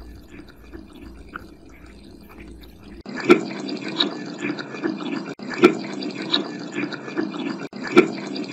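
Running tap water splashing and dripping, used as white noise. It is faint at first; about three seconds in a louder, band-limited recording of the water cuts in, with sharper splashes every second or so.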